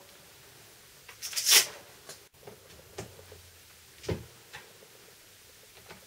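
Handling noises from a power tool and tools on a wooden workbench: a short scraping rustle about one and a half seconds in, then a sharp click, a knock a second later and a few light ticks.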